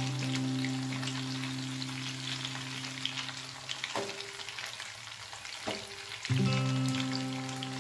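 Murrel fish steaks sizzling and crackling as they shallow-fry in oil in a pan, with a couple of clinks from the metal spoon and slotted spatula turning them. A steady low hum of held tones runs under the sizzle and drops out for about two seconds in the middle.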